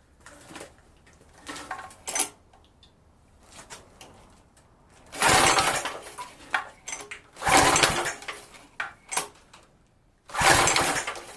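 Pressure washer's small four-stroke engine being cranked by its recoil pull-starter three times, each pull a short burst of about a second, without the engine catching: a sign of the carburetor not delivering fuel after 15 years of sitting, as the owner suspects.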